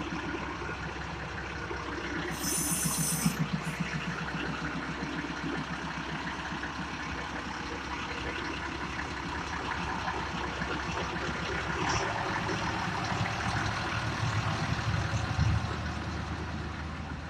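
Diesel engine of a Tokyo Metro rail-transport maintenance train running steadily as the cars roll slowly past, with a brief high hiss about two and a half seconds in. The engine sound swells past the middle and peaks near the end.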